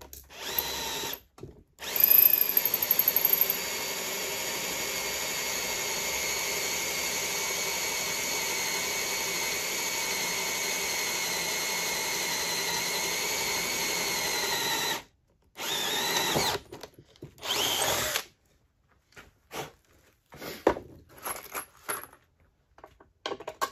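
Cordless drill boring a hole through an oak pallet-board deck plank. A short burst comes first, then a steady run of about thirteen seconds that rattles loudly for the first second or so as the bit bites in. A few short bursts follow before it stops, then faint knocks.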